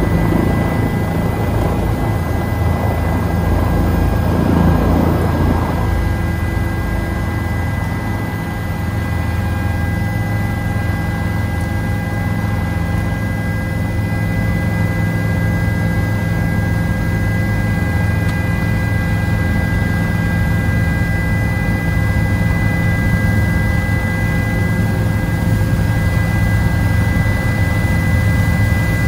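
A helicopter's engine and main rotor heard from inside the cockpit as it lifts off and climbs. A steady low rotor drone carries a steady high whine over it, with a brief swell of rushing noise about five seconds in.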